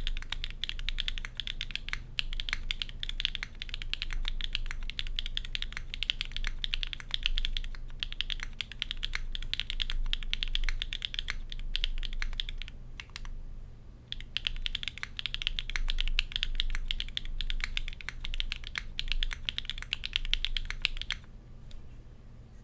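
Fast typing on a custom 60% mechanical keyboard with HMX KD400 switches in an aluminium plate: a rapid, continuous patter of keystrokes. The typing pauses briefly about thirteen seconds in and stops a little before the end.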